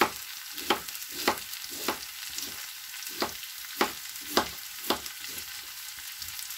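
A kitchen knife chops cabbage on a plastic cutting board, with sharp chops every half-second or so and a short pause midway. A steady sizzle of onion and carrot frying in a pan runs underneath.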